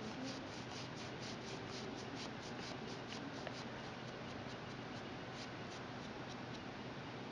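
Quick, rhythmic scratchy rubbing strokes, about four a second, worked across the textured iron-paint coat of a 3D-printed saber chassis part. The strokes thin out and fade over the last couple of seconds.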